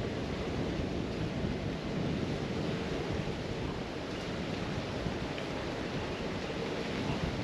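Steady rushing wind noise buffeting the microphone, a deep even rumble with no distinct events.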